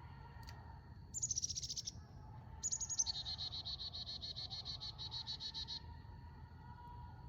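A songbird singing: a short burst of quick high notes, then after a brief pause a longer rapid trill of evenly repeated notes, about seven a second, lasting about three seconds.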